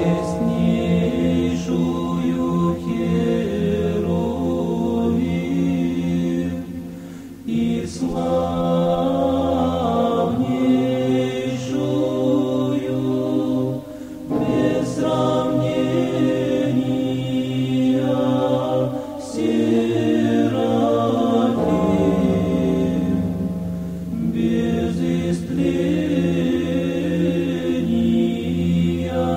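Background music: a choir chanting in harmony over a held low bass note, in long phrases with short breaths between them.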